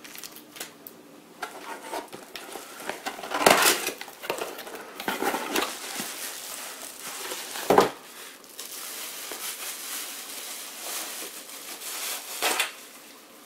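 Plastic packaging crinkling and rustling as a computer power supply and its screws are unpacked and handled, with a few sharp knocks, the loudest about eight seconds in.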